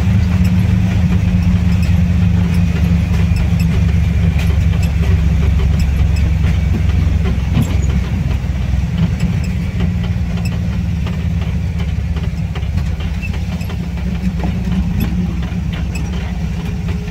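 Air-cooled VW Kombi flat-four engine running in first gear on a steep descent, holding the van back, heard from inside the cab along with road noise. The low hum eases off a little about halfway through.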